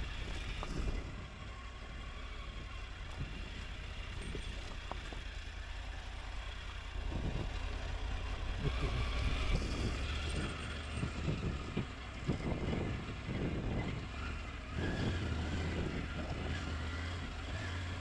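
Triumph Tiger 900 Rally Pro's three-cylinder engine running at low revs as the motorcycle rolls slowly over stony ground, a steady low rumble under wind and tyre noise. It grows a little louder from about seven seconds in, with irregular bumps.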